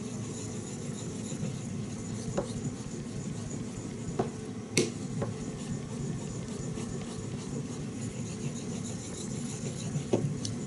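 CPM 3V steel hunting knife blade rubbing back and forth on a wet natural Japanese finishing stone (Kyoto Shohonzan awase toishi) worked up with Botan nagura slurry: a steady wet scraping, with a few sharp clicks.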